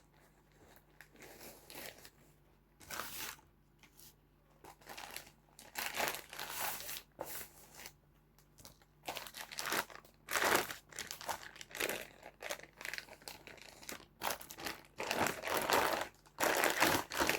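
Packaging bag crinkling and rustling in irregular handfuls as it is rummaged through and the wig is pulled out, with short pauses between.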